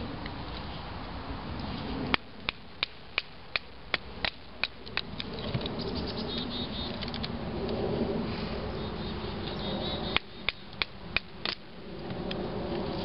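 Knife being tapped through small split cedar sticks with a wooden baton: a quick run of about nine sharp wooden knocks, about three a second, then five more near the end. An insect buzzes in between.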